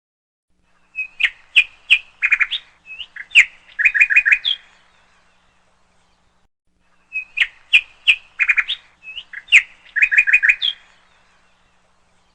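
A bird's sharp chirps and quick trills in two short bouts a few seconds apart, the second bout an exact repeat of the first.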